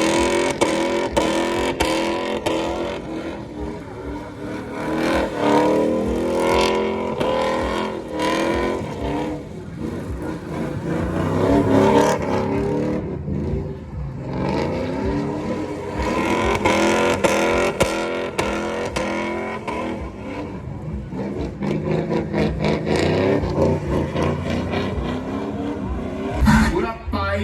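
Truck engine revving hard and repeatedly, its pitch climbing and dropping over and over.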